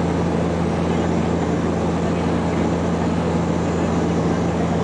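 Cabin noise of a high-wing turboprop airliner in level flight: a constant low propeller hum over a steady hiss of engine and airflow.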